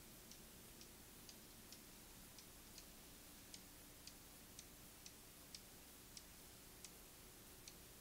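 Near silence with faint, sharp ticks about twice a second, slightly uneven in spacing.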